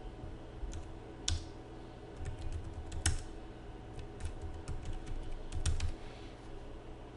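Typing on a computer keyboard: irregular keystrokes with a couple of louder key presses, thinning out and stopping about six seconds in.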